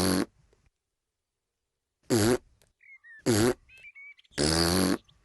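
A cartoon piglet's hiccups: short, rough, pitched hics, one ending just after the start and three more about a second apart from two seconds in, with faint squeaks between them.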